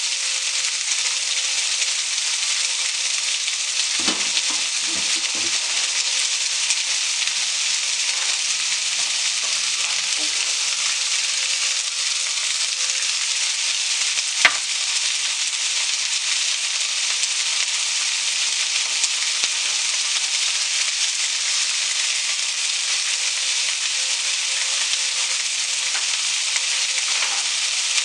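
Food sizzling steadily in a frying pan, a continuous hiss, with a few low knocks about four to five seconds in and one sharper knock about halfway through.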